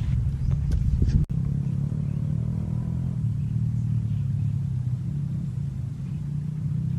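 A steady low hum, like an engine running at a distance. It breaks off for an instant about a second in.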